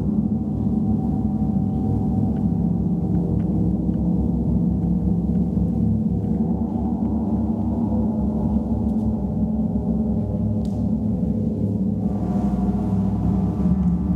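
Large gongs played with mallets, making a dense, steady wash of many overlapping low tones. About twelve seconds in, brighter higher tones swell in on top.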